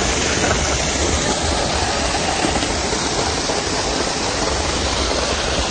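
Storm water gushing out of a building's drainpipe in a thick jet and splashing down onto the pavement: a steady, loud rush of water.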